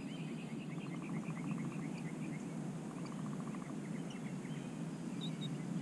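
Birds calling: a run of short, quick chirps, several a second, with a fast rattling trill twice, over a steady low background noise.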